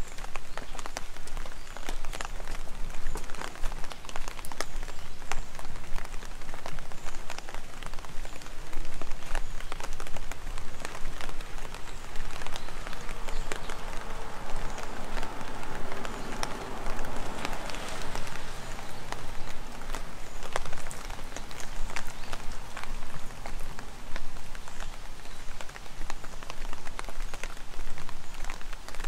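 Heavy rain falling on wet pavement, a steady hiss dotted with sharp taps of nearby drops, swelling for a few seconds about halfway through.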